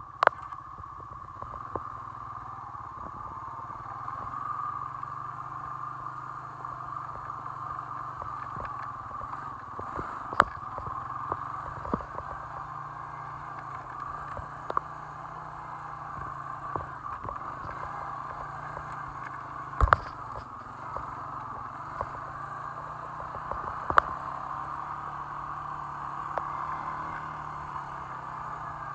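Honda 1000 ATV engine running steadily during a ride, with a few sharp knocks over it, the loudest about twenty seconds in.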